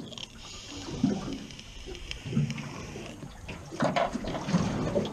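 Water lapping and slapping against a drifting aluminium boat's hull, in soft knocks about a second apart. A steady hiss runs under it for the first three seconds.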